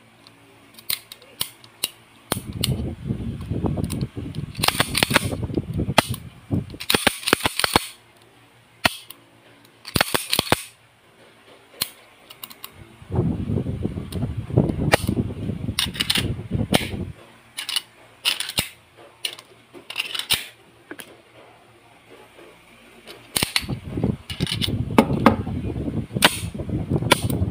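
Sharp metallic clicks and clacks of a Rock Island Armory 1911 pistol being worked by hand, its slide racked back and let go, scattered all through. Three longer stretches of low rubbing handling noise come from the gun and hands near the microphone.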